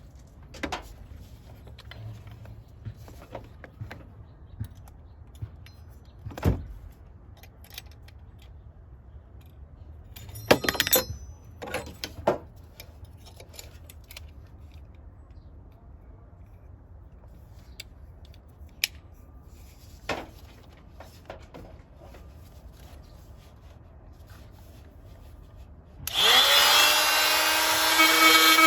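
Scattered clicks and knocks of tools being handled, then about three-quarters of the way through a handheld power tool starts, its whine rising as it spins up, and runs loud while cutting the opening in the truck's cowl for the intake.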